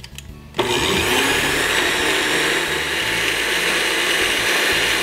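Countertop blender with a glass jar switched on about half a second in and running steadily, mixing liquid crepe batter.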